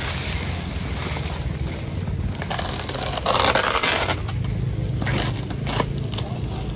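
A mác knife scraping and hacking at the dry, fibrous sheaths in a coconut palm's crown. There is a long scraping stretch about two and a half seconds in, then several short, sharp cuts.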